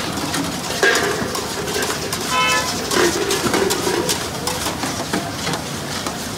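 Karahi cooking over gas burners: a steady burner roar and sizzle, with a metal ladle scraping and clinking against the steel wok. Two brief pitched sounds cut through, about a second in and again halfway.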